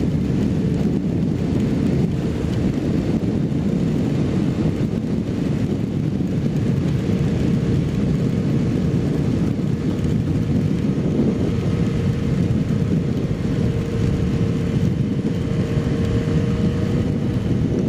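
Kawasaki Z750 motorcycle's inline-four engine running at steady cruising speed, its drone holding one pitch throughout, under heavy wind rush.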